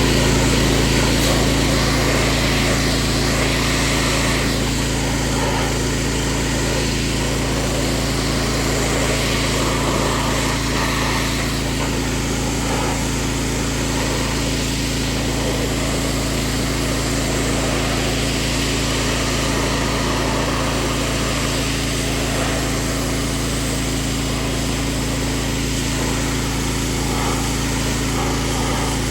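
Gas-powered pressure washer running steadily: the small engine's constant note under the hiss of the water spray.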